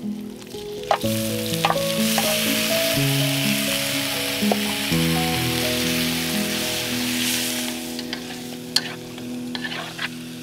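Marinated frog meat hitting hot oil in a steel wok, sizzling from about a second in and dying down near the end. Near the end there are a few sharp clicks of wooden chopsticks stirring against the wok.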